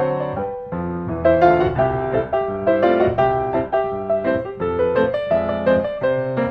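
Background piano music: a steady melody over a bass line.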